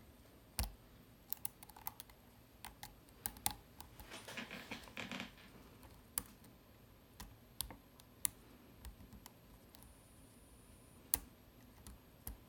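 Lock picks working the sliders of a Vidmar slider-type cabinet lock: scattered sharp metal clicks and ticks, with a short scratchy rattle about four seconds in.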